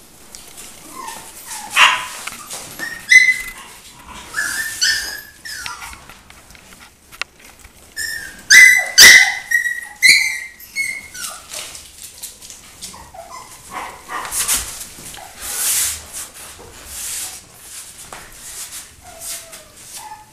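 West Highland White Terrier puppies yipping and barking in short high-pitched calls that come in clusters, loudest about nine seconds in.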